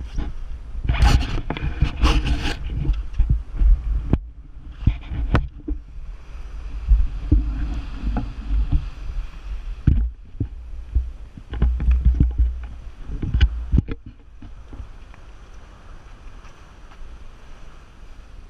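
Wind buffeting the microphone over water rushing and splashing along the hull of a sailboat under sail, with a few sharp knocks. It settles to a quieter, steadier rush over the last few seconds.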